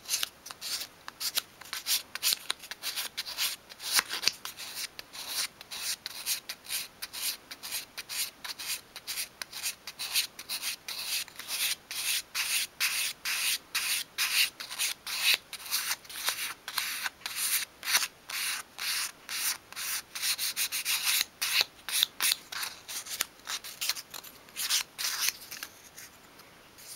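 Fine 500-grade sandpaper, held in the fingers, rubbed in short quick strokes over the edges of a thin wooden cut-out to round them off, about two to three strokes a second. The strokes stop near the end.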